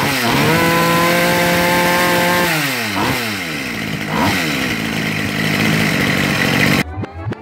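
Maruyama two-stroke brushcutter engine running and being revved by hand on its throttle cable: the revs climb and hold high for about two seconds, fall back, blip twice, then climb again. Music cuts in sharply near the end.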